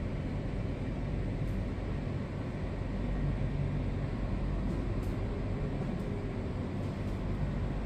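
Steady low rumble with a hiss over it: the background noise inside a moving observation-wheel capsule.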